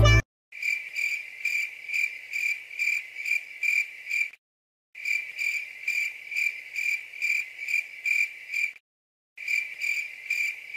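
Cricket chirping, a high-pitched steady pulse about three times a second, cutting out completely twice for about half a second.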